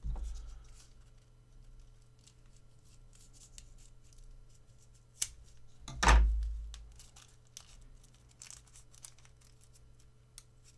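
Thin plastic shrink-wrap being picked at, cut with a folding knife and torn off a small accessory: soft crinkles, tearing and small clicks, with a dull thump about six seconds in.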